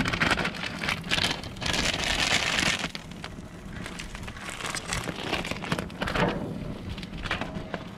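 Hot dogs sizzling and crackling on the hot grates of a gas barbecue grill, louder for the first three seconds.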